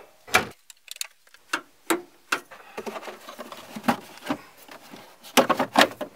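Scattered sharp plastic and metal clicks and knocks from a Chevy Silverado's hood release being pulled and the under-hood fuse box cover being unclipped, with a quick cluster of clicks near the end as the cover comes free.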